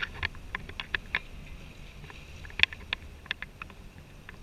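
Sportfishing boat at sea: a steady low rumble from the boat with irregular sharp clicks and ticks, a few a second.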